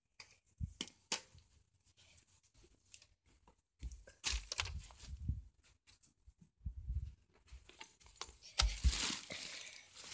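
Handling noise from a handheld camera's microphone: irregular rubbing, scraping and knocks as it is swung about. The loudest bursts come about four to five seconds in, at seven seconds and around nine seconds.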